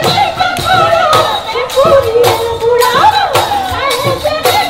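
Live Bihu music: dhol drums beating a quick, steady rhythm under a wavering melody line.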